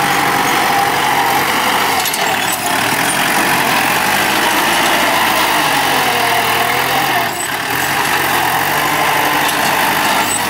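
Kubota L4708 tractor's four-cylinder diesel engine running under load as its front blade pushes fill soil, its note dipping slightly twice as the load comes on.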